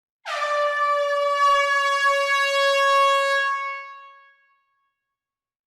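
Air horn sounding one long steady blast of about three seconds, then fading out.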